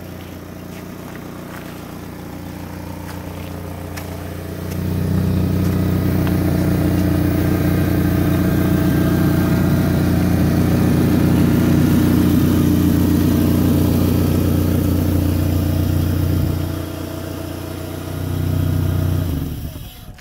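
GMC Sonoma pickup engine idling steadily, louder from about five to sixteen seconds in, with a brief swell near the end before it cuts off suddenly.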